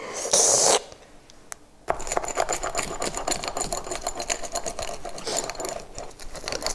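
A short loud hiss, then from about two seconds in a pizza wheel rolling through the crisp baked crust on a wooden cutting board: a rapid run of crunching clicks and crackles.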